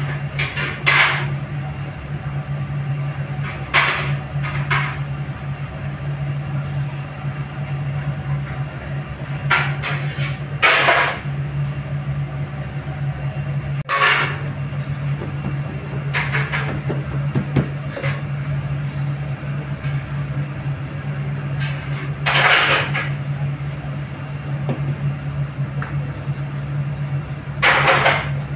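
A steady low machine hum, with a knock or clatter every few seconds from paratha dough being stuffed and rolled on a steel counter.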